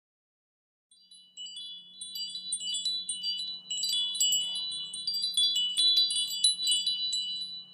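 Chimes tinkling: many overlapping high ringing tones, starting about a second in after silence, over a faint low hum.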